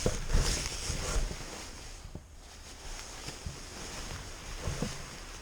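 A fabric motorcycle cover being pulled off, with rustling and low handling thumps, loudest in the first second and a half and then quieter.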